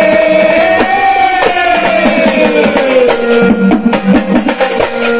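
Marathi jagran gondhal folk music: a singer holds one long note that slides down in pitch. A quick run of drum strokes follows in the second half.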